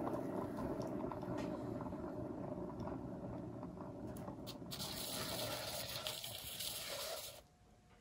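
Hairdryer running steadily, blowing air across wet acrylic paint to spread the bloom. The air turns hissier for the last couple of seconds, then the dryer cuts off suddenly near the end.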